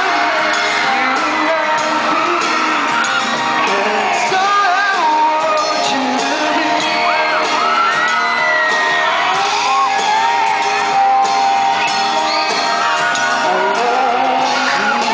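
A live pop song, with singing into a microphone over amplified music, and fans shouting and whooping over it throughout.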